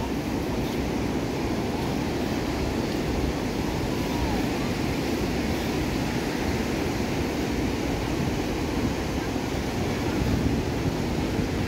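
Surf breaking and washing up a sandy beach: a steady rush with no let-up, with wind buffeting the microphone.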